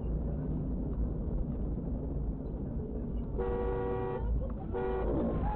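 Steady rumble of a moving vehicle heard from its cab, then its horn sounds twice, a longer blast and a shorter one, about three and a half seconds in, as a warning to a pedestrian running across the road ahead.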